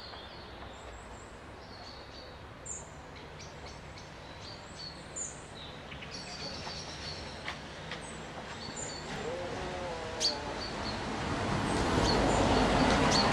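Small songbirds chirping and singing in short, high calls scattered throughout, over a steady rushing background noise that grows louder near the end.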